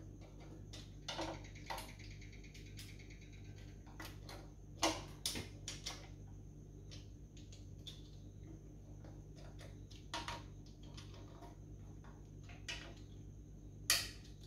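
A hand driver clicking and tapping as Holden 253 V8 sump bolts are spun down by hand: scattered short sharp clicks, the loudest about five seconds in and another near the end, over a steady low hum.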